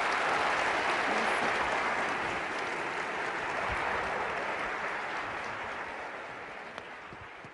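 Audience applauding steadily after a talk, fading out near the end.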